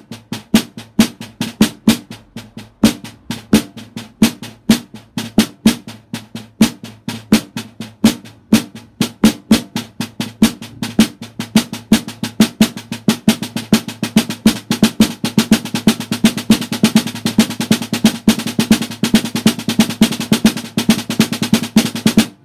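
Snare drum played with wooden sticks on a practice pad laid over its head, a samba batucada pattern of quick strokes that grows denser and busier about halfway through, then stops suddenly near the end.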